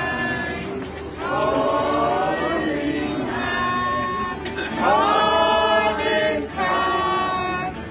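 Group of carollers singing a Christmas carol together in chorus, in phrases of long held notes with short breaks between them.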